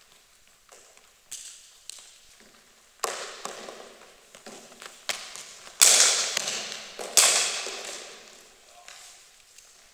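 Cricket ball impacts in an echoing sports hall: a string of sharp knocks, with the two loudest cracks about six and seven seconds in, each ringing on in the hall's echo.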